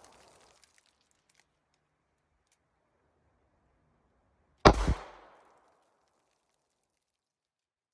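A single shot from a Ruger EC9s 9mm compact pistol, a sharp crack a little past the middle that rings out over about half a second. The echo of the previous shot is dying away at the start.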